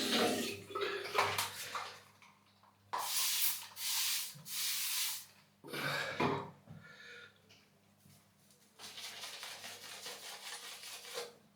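A 24mm synthetic shaving brush swished and rubbed through shaving soap to build lather. There are several short swishing strokes, then a longer stretch of steady rubbing near the end.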